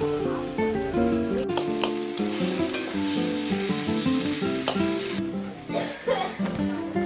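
Onions and tomatoes sizzling in mustard oil in an iron wok, stirred and scraped with a metal spatula, with a few sharp clicks; the sizzle drops away about five seconds in. Background music plays throughout.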